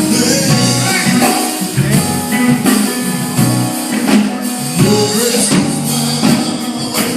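Gospel music: voices singing over a band with guitar, drums and tambourine keeping a steady beat.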